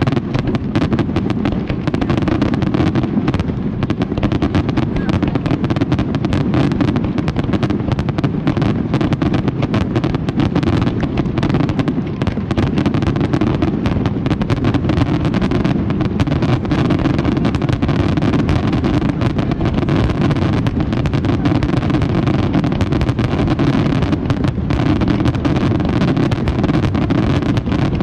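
Fireworks crackling in a continuous dense barrage of rapid small reports, with no single large bang standing out.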